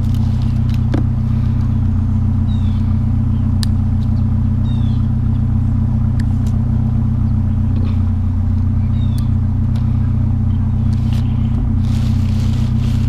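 A vehicle engine idling with a steady low hum, with scattered light clicks and knocks of scrap being handled.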